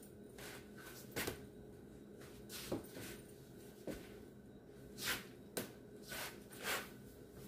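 Faint steady room hum with about seven soft knocks and swishes scattered through it: the footsteps and clothing of two people dancing in a small kitchen.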